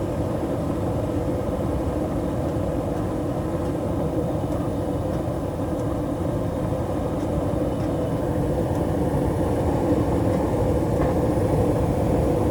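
Gas furnace blower motor running with a steady rumble and a thumping in the motor. It is a sign of a failing blower motor that is struggling; its run capacitor tests weak.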